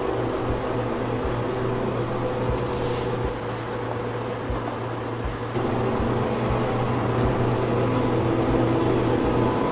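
A steady low mechanical hum, like a motor or engine running, with a few faint irregular low thuds.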